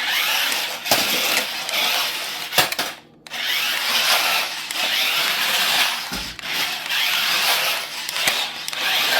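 Small electric drive motors and gears of a Sharper Image Sideslider toy RC stunt car whirring as it is driven on the floor. The whirring stops for a moment about three seconds in, then runs on, rising and falling with the throttle, with a couple of sharp clicks early on.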